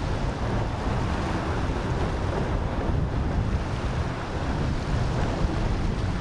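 Steady wind buffeting the microphone over the continuous rush of waves and boat wake.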